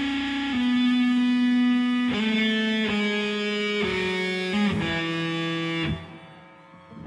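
Band music in an instrumental passage: a guitar plays a melody of long held notes, then breaks off about six seconds in.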